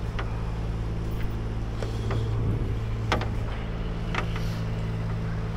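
An engine running at a steady idle, with a few sharp clicks over it.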